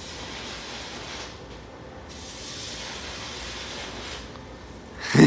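Electric arc welder running: the steady hiss of the welding arc, which thins briefly about a second in and stops shortly before the end. A short loud voice comes right at the end.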